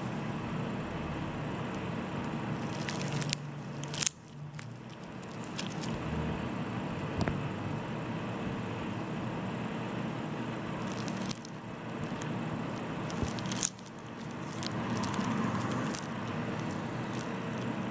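Faint wet squishing and crackling as a cyst on the face is squeezed between gauze-covered gloved fingers, over a steady background hiss, with a few sharp clicks, the loudest about four seconds in.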